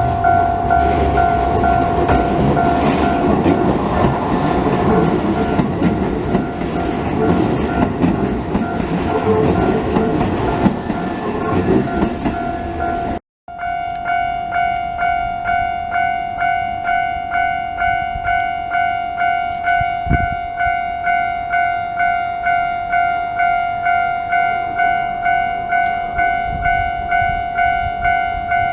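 Japanese railway level-crossing alarm ringing its pulsing two-tone "kan-kan" while a Keisei Kanamachi Line commuter train rumbles through the crossing. After an abrupt cut about 13 seconds in, the crossing alarm rings on its own, about two strokes a second.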